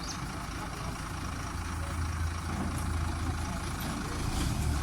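Combine harvester's engine running steadily, a low, even hum under a broad mechanical noise.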